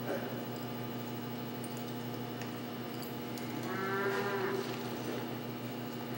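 A calf bawls once, a single call about a second long a little past the middle, over a steady low hum.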